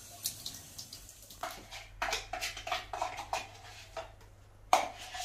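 Kitchen clatter: a quick run of light clinks and knocks of utensils against dishes, several ringing briefly, then one sharper clink near the end.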